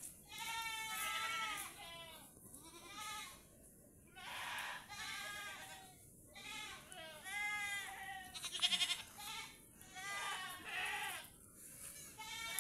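Goats bleating over and over, a dozen or so calls, some overlapping, each with a wavering, quavering pitch. The loudest, a sharply trembling bleat, comes about nine seconds in.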